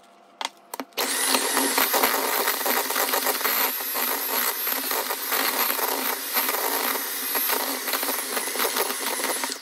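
Electric hand mixer starting about a second in and running steadily, its beaters churning a stick of butter with sugar in a mixing bowl to cream them. A few short knocks come just before it starts.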